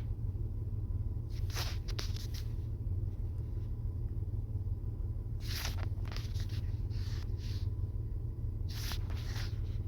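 Steady low rumble of a car cabin with the engine running. Three brief clusters of short clicks and rustles come about one and a half, five and a half and nine seconds in.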